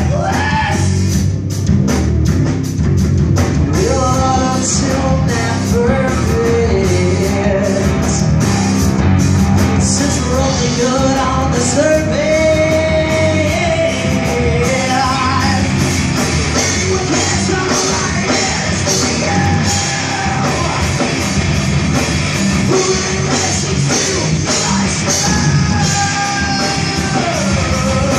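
Hard rock band playing live: distorted electric guitars, bass guitar and drum kit, with a male singer's voice over them.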